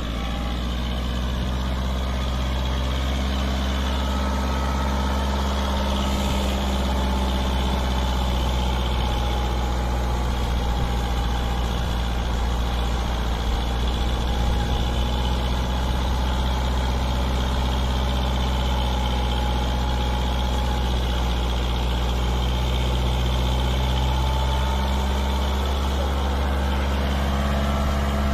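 Kubota MU5501 tractor's four-cylinder diesel engine running steadily as it pulls a heavily loaded trailer, growing slightly louder as it draws closer.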